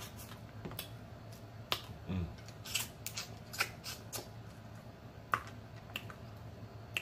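Boiled snow crab leg shells being snapped and picked apart by hand: a scattered run of sharp cracks and clicks of shell, about a dozen, the loudest about five seconds in. A short low hum falls away about two seconds in.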